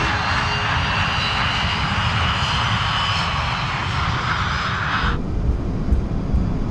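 Jet airliner's engines at takeoff power during the takeoff roll: a loud steady roar with a high whine over a low rumble. The roar cuts off suddenly about five seconds in, leaving only the rumble.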